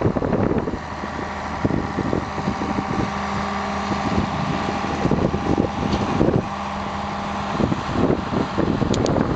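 Diesel engine of a crawler dozer running steadily as it pushes dirt and brush, with wind buffeting the microphone in gusts.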